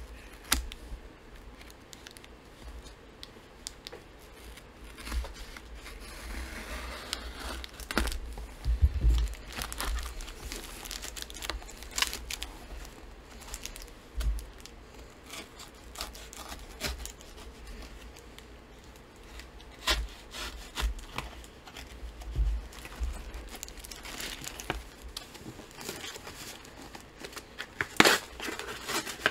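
A knife cutting through packing tape and a taped paperboard Priority Mail flat rate envelope, with tearing and crinkling of paper and tape. Scattered knocks and thumps of the package and knife being handled, a couple of louder ones near the end.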